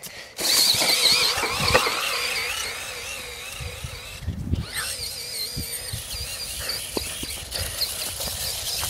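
Toy RC car's motor whining at a high pitch as it drives, the pitch wavering up and down. The whine cuts out briefly about four seconds in, then picks up again.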